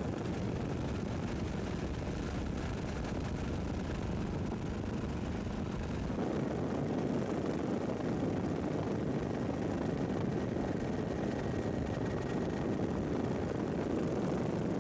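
Steady rumble of a helicopter's engine and rotors heard from inside the cabin, with a shift in tone about six seconds in.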